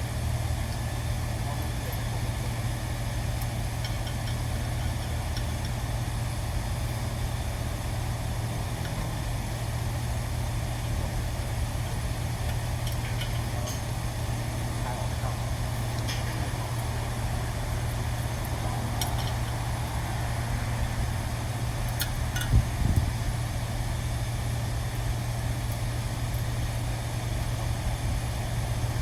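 A steady low machine hum, like an engine or motor running, with a few light clicks and one louder knock about two-thirds of the way through.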